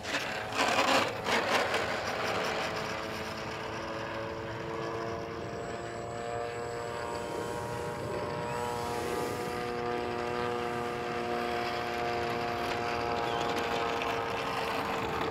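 The electric brushless motor and propeller of a 3D-printed RC aerobatic airplane whine steadily at low throttle as it taxis on the runway, with a slight drift in pitch. A few brief loud noisy bursts come in the first second or so.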